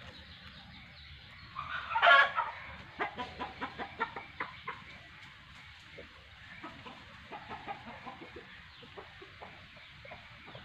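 Domestic chickens calling: one loud call about two seconds in, followed by a run of short clucks, with scattered fainter clucks after.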